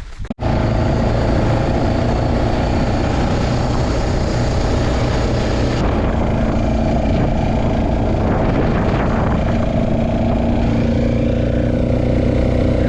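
Small off-road vehicle's engine running steadily while riding, cutting in abruptly about half a second in.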